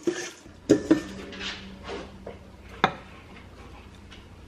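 Salad servers clinking against a stainless steel mixing bowl while tossing and lifting out arugula salad. A few sharp knocks come about a second in and again near three seconds, with a softer rustle of leaves between them.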